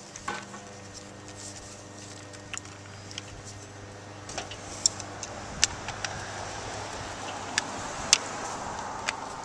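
Plastic and brass irrigation fittings being handled and screwed together: scattered sharp clicks and light clinks as a brass hose-thread adapter goes onto a plastic Y strainer. In the last few seconds pliers tighten the brass fitting onto a battery-operated hose timer, with a rougher scraping sound. A steady low hum runs underneath.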